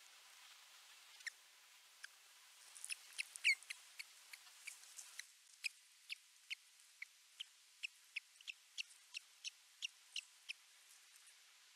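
Osprey chirping at the nest: short, high-pitched calls, scattered at first, then an even series of about three a second for several seconds, over faint hiss.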